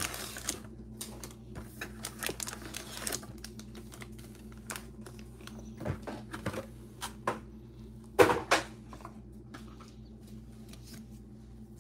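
Handling of a Panini Limited trading-card pack: cardboard and foil packaging opened, with a run of light clicks, taps and rustles as it is handled and the cards are slid out. A louder double knock comes about eight seconds in.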